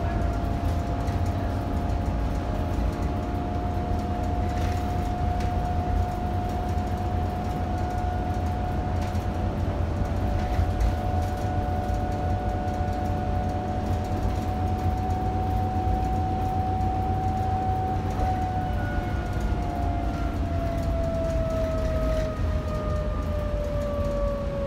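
Interior sound of a New Flyer C40LFR transit bus under way: a steady drivetrain whine over the low rumble of engine and road. About three-quarters of the way through, the whine starts sliding down in pitch as the bus slows.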